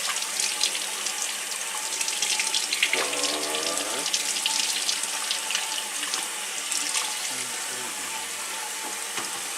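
Tap running into a sink during hand dishwashing, with scattered clinks of dishes and utensils. A brief sliding pitched sound comes about three seconds in.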